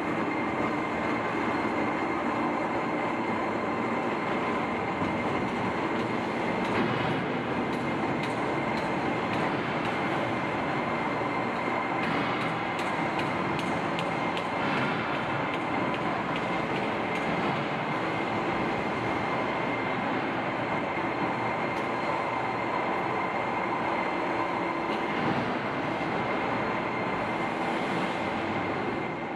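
Railway turntable turning under a locomotive: a steady mechanical running noise with a constant high whine, unchanging throughout.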